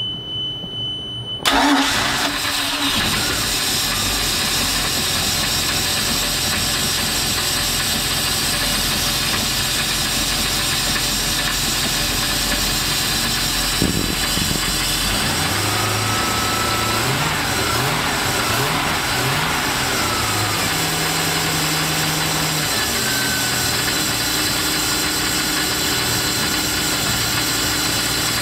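MerCruiser 5.0-litre V8 sterndrive engine being started, heard close at the open engine bay. It cranks briefly, catches about a second and a half in, and settles into a steady idle. About halfway through, the idle note changes and its pitch wavers up and down a little.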